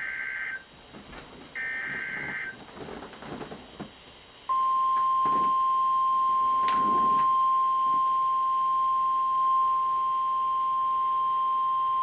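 Emergency Alert System sequence on NOAA Weather Radio, signalling a new snow squall warning. Two short buzzy SAME header data bursts, the last ending about two and a half seconds in, are followed about two seconds later by the steady, loud 1050 Hz weather radio alert tone.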